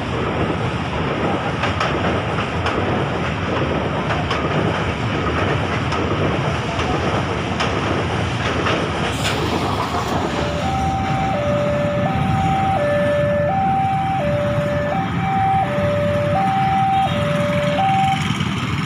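Loaded coal train's hopper wagons rolling past close by, a steady heavy rumble of steel wheels on rail with occasional sharp clanks. About halfway through this gives way to a railway level-crossing warning alarm, two electronic tones alternating high and low about every two-thirds of a second, over street traffic and motorcycle engines.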